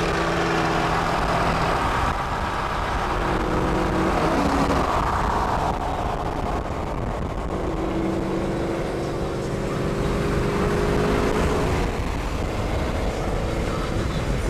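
Car engine droning steadily at highway cruising speed, heard from inside the cabin over tyre and wind noise. The hiss fades about six seconds in while the engine tone carries on.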